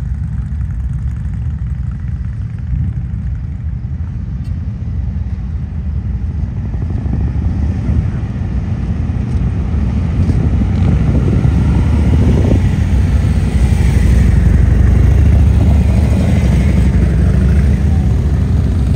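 Motorcycle engines rumbling, growing louder over the second half.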